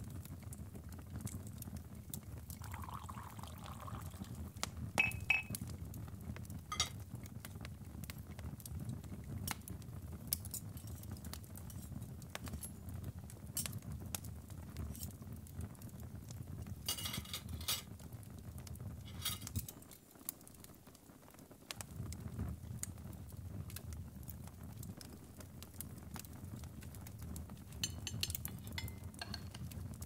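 Ambience mix of a crackling fire, a steady low rumble with scattered pops, and occasional clinks of crockery and cutlery, with a clear ringing clink about five seconds in. The rumble drops out for a couple of seconds about two-thirds of the way through.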